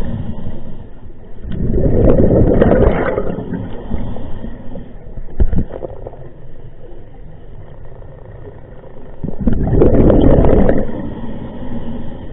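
Scuba diver's exhaled breath bubbling out of the regulator underwater: two long bursts of bubbles, about a second and a half in and again near ten seconds, with quieter water noise between breaths.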